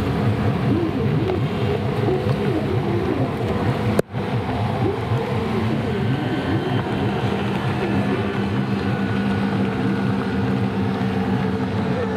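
Racing jet ski engines revving up and down through the buoy turns, several engine notes overlapping over the hiss of water spray. The sound cuts out for an instant about four seconds in.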